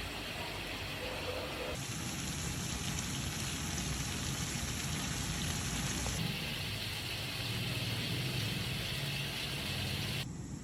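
Food frying in hot oil in a pan, a steady sizzle that changes abruptly in level and tone three times.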